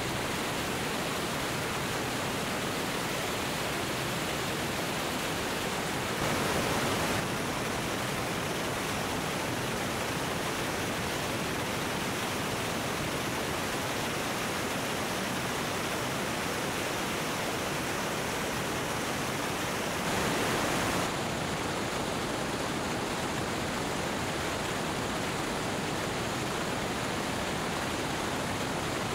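Steady rushing wind noise from airflow over the microphone of a camera mounted under a Cessna 205 as it rolls down the runway at speed. The noise swells briefly louder twice, about six and twenty seconds in.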